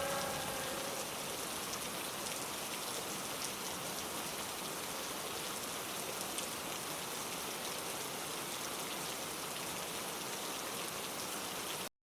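Steady rain falling, a constant hiss of water with scattered tiny drop ticks; it cuts off abruptly near the end.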